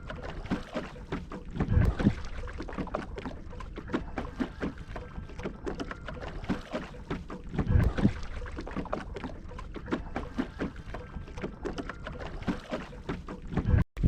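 Lake water lapping and splashing against a wooden shikara's hull as it is paddled, a busy patter of small splashes. Two louder low rushes come about two and eight seconds in.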